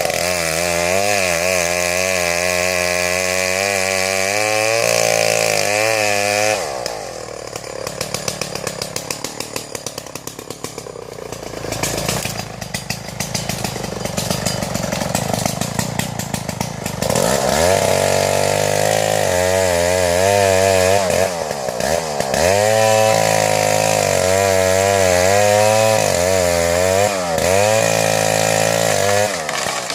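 Vintage Solo Rex two-stroke chainsaw cutting into a tree at high revs, its pitch wavering under load. About six seconds in it drops back to a lumpy, pulsing idle, then it revs up again around seventeen seconds in and cuts on until shortly before the end.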